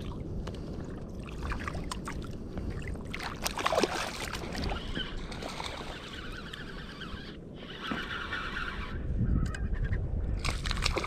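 Shallow bay water sloshing and splashing around a wading angler, with irregular short splashes over a continuous low rumble.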